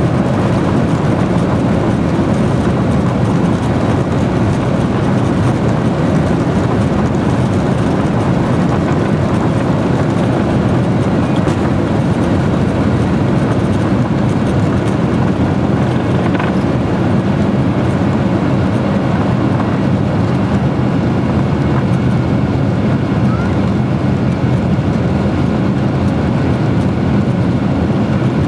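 Jet airliner's engines at takeoff thrust, heard from inside the cabin: a steady, loud, even noise through the takeoff roll and climb-out.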